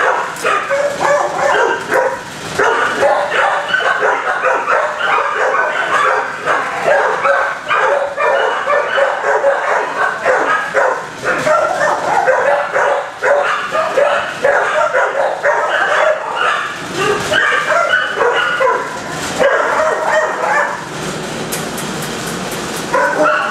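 Many shelter dogs in their kennels barking and yipping at once, a constant din of overlapping barks; it eases off briefly near the end.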